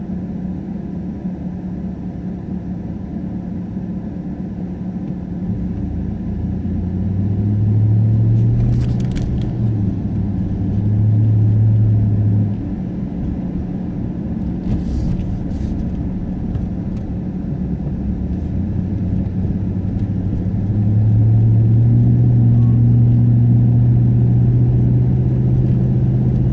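A car's engine and tyre noise heard from inside the cabin as it pulls away from a stop and drives on. A low hum swells as the car speeds up, around eight and eleven seconds in and again from about twenty-one seconds on.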